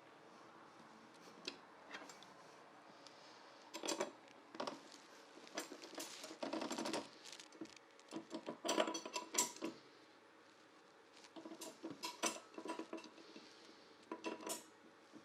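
Irregular metallic clinks and rattles as a blade is mounted on a table saw's arbor and the arbor nut is tightened, in scattered bursts that are busiest in the middle.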